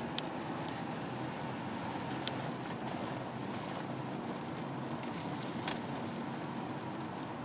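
Car driving along a country road, heard from inside the cabin: a steady rumble of engine and tyres. A few short sharp clicks cut through it, the loudest a little after five seconds in.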